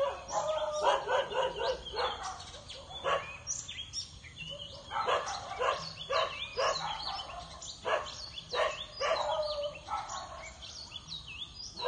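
Dogs barking in several bouts of short, quick barks, with small birds chirping.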